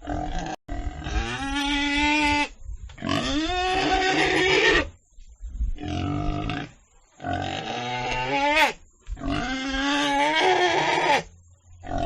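Pigs calling: about five drawn-out pitched calls of one to two seconds each, several rising in pitch at the start, cut apart by short clean gaps.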